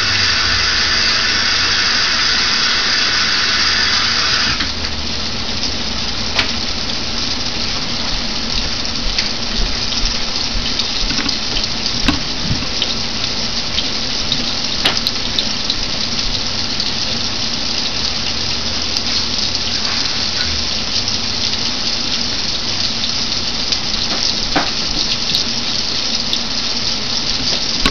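Floured fish pieces deep-frying in hot oil in a cast-iron skillet: a steady sizzle with scattered pops and crackles. A brighter hiss in the sizzle stops abruptly about four and a half seconds in, and the frying goes on a little quieter.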